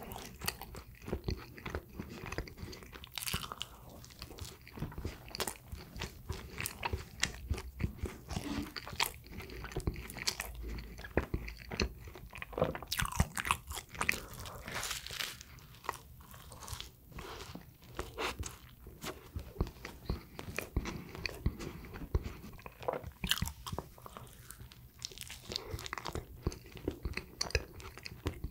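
Close-miked eating of sweet bread: a person biting and chewing with a continual run of wet mouth clicks and smacks, and a few louder bites near the middle.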